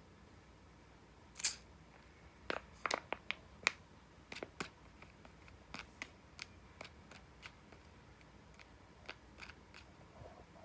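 A kitten at play knocking small hard objects about: irregular sharp clicks and taps, bunched together about two and a half to five seconds in, then sparser.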